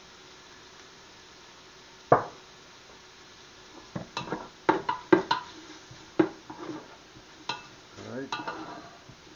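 Wooden spoon knocking and scraping against the sides and bottom of a metal stockpot as diced bacon is stirred: a run of irregular sharp knocks from about four seconds in. One sharp knock comes alone about two seconds in.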